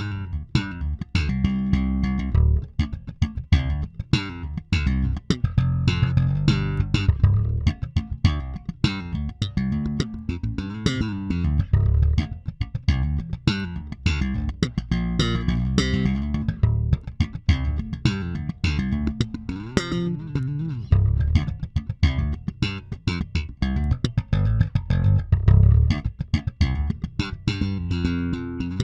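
Electric bass guitar fitted with an active preamp circuit, played in a long run of quick, sharply attacked notes with a strong low end. It starts right after a brief silence.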